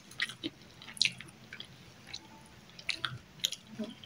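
A person chewing food: scattered short, wet mouth smacks and clicks at irregular intervals.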